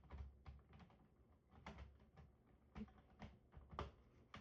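Near silence broken by a few faint, irregular clicks and taps.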